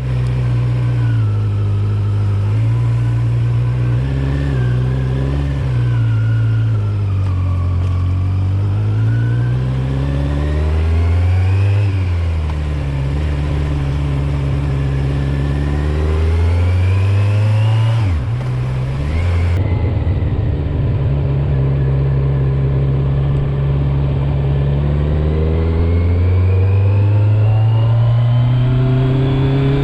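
Kawasaki Z900's inline-four engine, restricted to 35 kW, pulling on the road. Its note rises under acceleration and drops sharply at gear changes about 12 and 18 seconds in, then holds steady before climbing again near the end.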